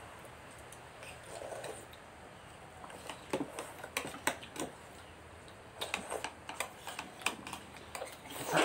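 Metal spoons clicking and scraping against plates as several people eat noodles: irregular short clicks, thickest in the second half.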